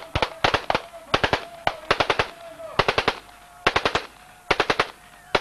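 Rapid sharp cracks in short bursts of three or four, the bursts coming every half second to a second, over a faint steady tone.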